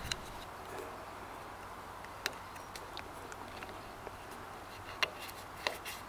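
A few short, sharp clicks of hands handling a plastic cable junction box and its gland nut, the loudest about five seconds in, over a steady faint hiss.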